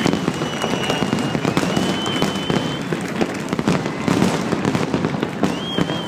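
Fireworks display going off continuously: a dense crackle of pops, with a few thin high whistles held for about a second each.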